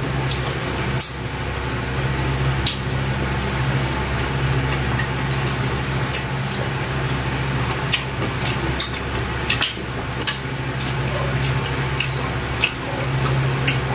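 Close-miked wet chewing and lip-smacking of people eating saucy octopus adobo and rice by hand, with many small scattered clicks over a steady low hum.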